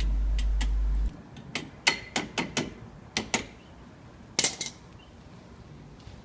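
Metal tools or car parts clinking and tapping against each other: about eight sharp, ringing clinks over some three seconds, the loudest pair about four and a half seconds in. A steady low hum runs through the first second and then stops.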